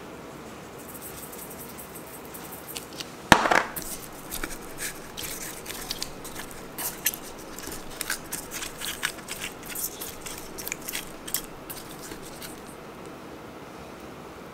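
Hands rubbing turban shell meat and livers with salt in a stainless steel bowl: a run of small wet clicks and crackles. About three seconds in there is a single sharp knock with a short metallic ring against the bowl.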